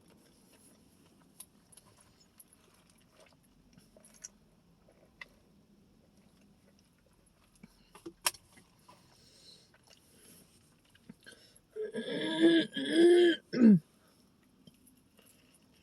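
Faint scattered clicks of eating and handling food, then near the end a loud, short vocal sound from the eater, about two seconds long, in three pulses.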